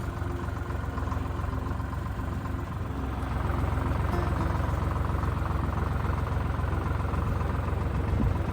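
An engine running steadily, getting a little louder about three seconds in.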